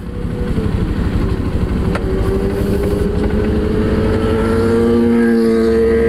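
A vehicle engine running steadily over road rumble, its pitch slowly rising as it picks up speed.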